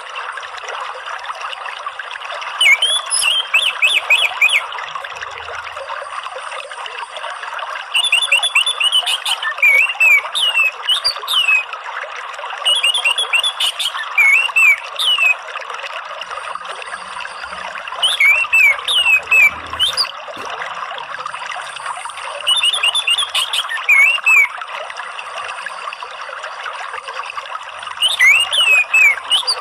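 Orange-headed thrush song in six short bouts a few seconds apart, each a run of quick repeated notes with sweeping whistles, over a steady sound of running water.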